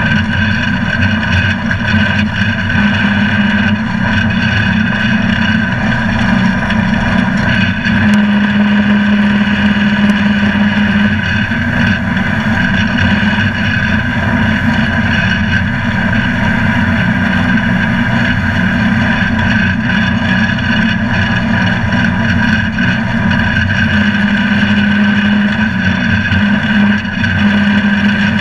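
Toro commercial mower running at full mowing speed with its blades engaged, cutting tall, thick grass: a loud, steady engine drone with the cutting noise, holding an even pitch. A low hum strengthens twice for a few seconds.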